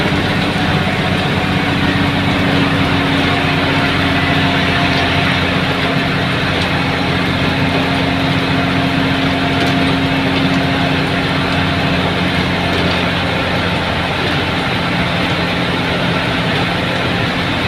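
Tata bus engine and road noise heard from inside the driver's cab while cruising on a highway: a steady drone with an even engine hum.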